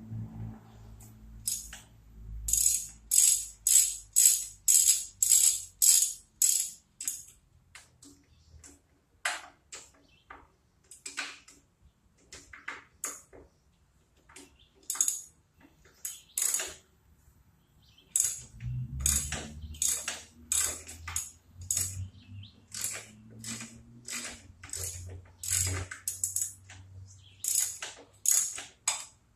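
Ratchet wrench clicking in runs of back-and-forth strokes, about two a second with pauses between, as the connecting-rod bearing cap bolts of an IHC Model M 1½ hp engine are loosened.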